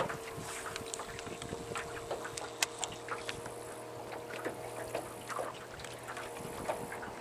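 Electric trolling motor humming steadily on a small fishing boat, with a lower hum that comes in about two seconds in and drops out near the end. Small water slaps and ticks against the hull run throughout.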